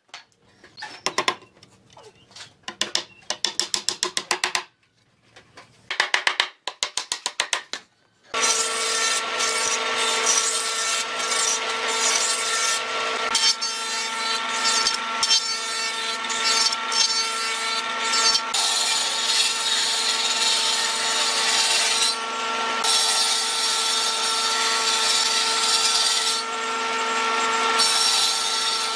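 Short bursts of rapid clicking, then about eight seconds in an electric power tool starts and runs with a steady whine while working wood, the hiss of the cut rising and falling several times.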